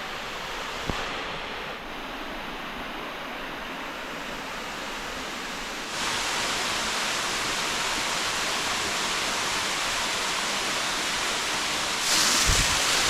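Rushing water of a waterfall in a canyon: a steady hiss of falling water that gets louder and brighter about six seconds in and again near the end.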